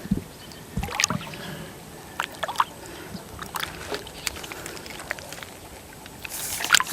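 Water sloshing with small splashes as a big hooked yellowcheek is drawn in close, with scattered short knocks and clicks and two low thumps in the first second.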